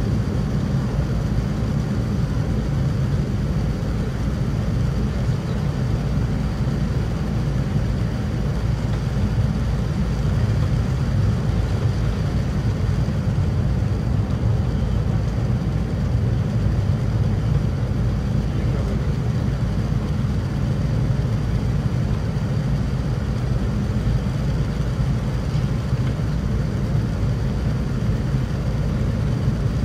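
Boeing 787-9 cabin noise during descent: a low, steady rumble of airflow and engines.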